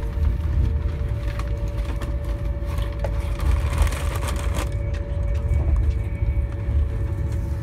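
Class 390 Pendolino electric train running at speed, heard from inside the carriage: a steady low rumble with faint steady tones above it and small scattered clicks, and a brief rush of noise about three to four and a half seconds in.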